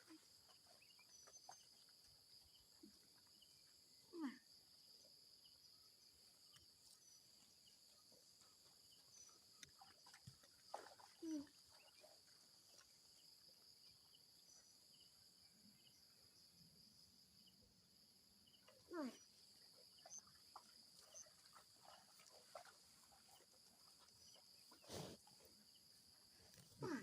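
Faint rural outdoor ambience: a steady high insect drone, broken a few times by short falling animal calls and once by a sharp knock.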